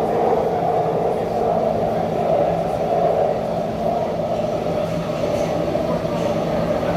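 Metro train running between stations, heard inside the passenger car: a steady rumble of wheels and running gear with a low even hum beneath it.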